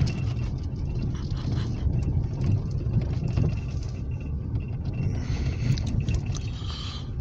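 Car driving slowly on a gravel track, heard from inside the cabin: a steady low rumble of engine and tyres, with faint crackling from the gravel.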